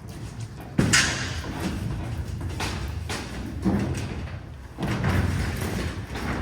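Twin-wall polycarbonate sheet being handled against the greenhouse frame: a sharp knock about a second in, then flexing, rattling and rumbling, with another thud near the end.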